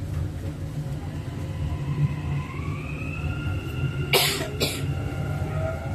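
Dubai Metro train running on its elevated track, heard from inside the cabin: a steady low rumble with an electric motor whine that rises in pitch as the train picks up speed, then levels off. About four seconds in come two short sharp noisy bursts half a second apart.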